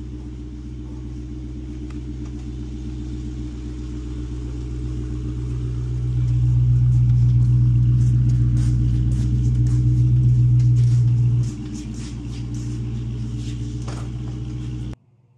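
A vehicle engine running steadily with a deep hum. It grows louder about six seconds in, drops back about five seconds later, and cuts off suddenly near the end.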